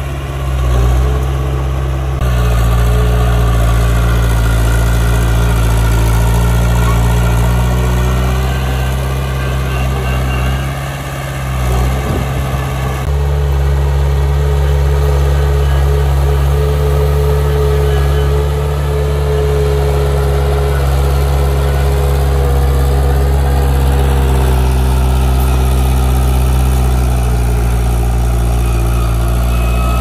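Diesel engine of earthmoving machinery running steadily, easing off briefly about eleven seconds in and picking up again a couple of seconds later.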